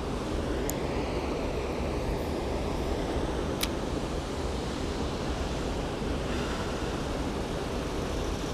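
Steady rushing of water pouring through a creek spillway, with two short sharp clicks, one about a second in and another a few seconds later.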